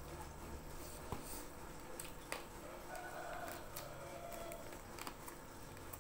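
Close-up eating sounds: fingers gathering rice on the plate, then a handful of rice and fried chicken taken into the mouth and chewed, with a few small sharp clicks scattered through.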